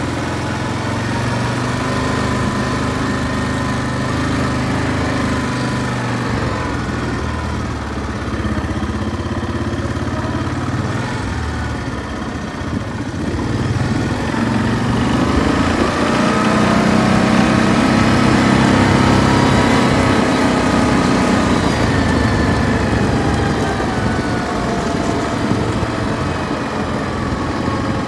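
Yamaha ATV's engine running as the quad is ridden at low speed. The engine's pitch rises and falls with the throttle, and it grows louder about halfway through before easing off again near the end.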